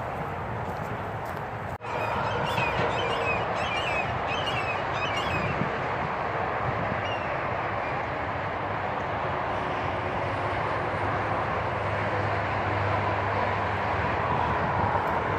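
Steady outdoor background noise, with small birds chirping for a few seconds starting about two seconds in.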